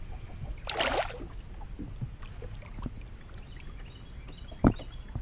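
A hooked bass being landed at the side of a boat: a brief splash about a second in, over steady low wind and water noise, then one sharp knock against the boat near the end.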